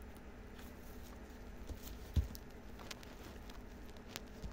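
Rabbits chewing and nibbling dry hay, heard as small scattered crunching clicks, with one louder low thump about two seconds in.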